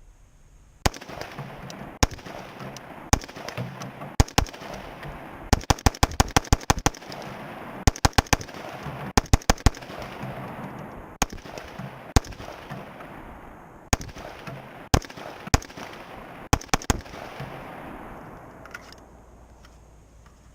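AR-15 rifle in 5.56 with a Lantac Dragon muzzle brake firing: single shots about a second apart, then quick strings of several rapid shots, each report trailing off in a long echo.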